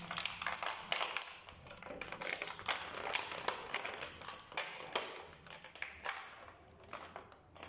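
Thin clear plastic blister tray crinkling and clicking under the fingers as an action figure is worked out of it: a run of irregular small taps and crackles that grows sparser near the end.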